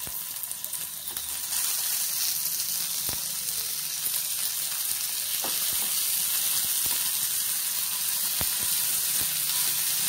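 Oil sizzling steadily in a nonstick frying pan as garlic cloves, shallots, curry leaves and tomato pieces fry. The sizzle gets louder about a second and a half in. A wooden spatula stirs, giving occasional light taps against the pan.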